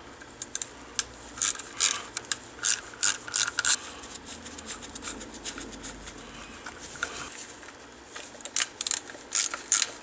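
Small hand ratchet clicking in bursts as screws are backed out of a Duramax fuel filter head, with a quieter stretch in the middle.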